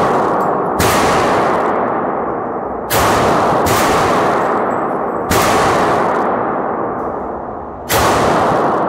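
Glock 32 Gen 4 pistol, converted to .40 S&W with a factory Glock 23 barrel, fired slowly: four shots about two to two and a half seconds apart. Each shot is followed by a long, ringing echo off the walls of the indoor range.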